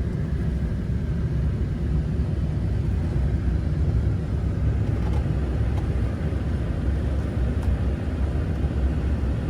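Steady low rumble of a vehicle's engine and running gear, heard from inside the cab.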